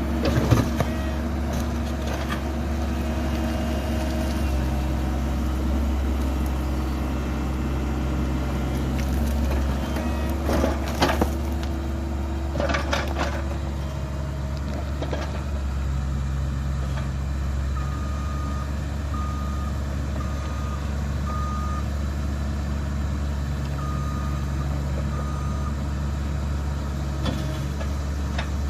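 Cat 304E mini excavator's diesel engine running steadily as the machine works. Several sharp knocks and scrapes come from the bucket breaking out concrete sidewalk. About two-thirds of the way through, a run of short, evenly spaced beeps sounds.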